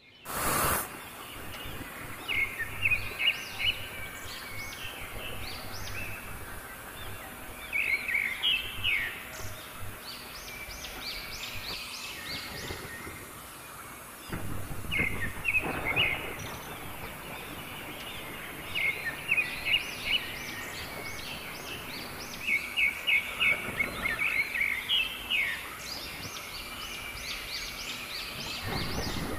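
Handheld angle grinder with an abrasive disc cutting through an iron bar: a steady grinding hiss, with clusters of short high-pitched chirps over it every few seconds.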